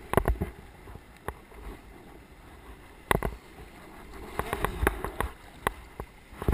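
Kayak paddling on a river: sharp knocks and splashes of the paddle against the water and the boat, irregular and in small clusters, over a low wash of moving water.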